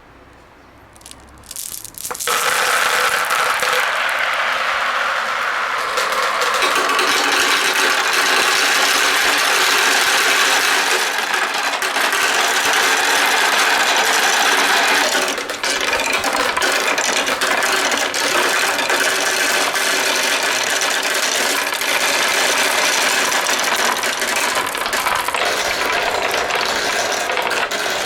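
Many marbles rolling and clattering down a wooden marble run slope and through a plastic hose: a dense, continuous rattle that starts about two seconds in, with a brief dip about halfway through.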